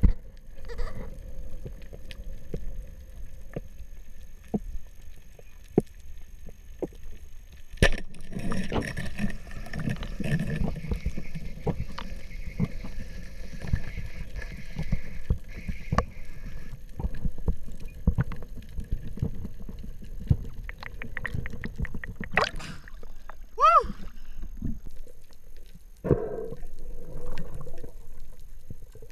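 Muffled underwater sound heard through an action camera's housing during a spearfishing dive: a low rush of water with scattered clicks and knocks. There is a sharp knock about 8 seconds in, another about 22 seconds in, and a brief whistle-like tone shortly after.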